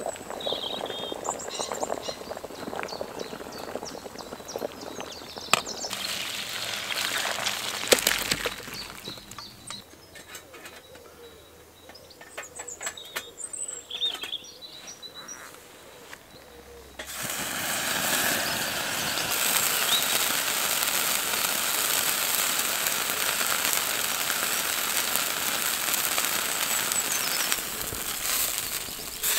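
Wood fire crackling in a Firebox twig stove, with birds chirping and a few metal clinks and knocks as the stainless grill plate goes on. About 17 seconds in, a sudden steady sizzle begins and holds: seasoned pork loin frying on the hot grill plate over open flame.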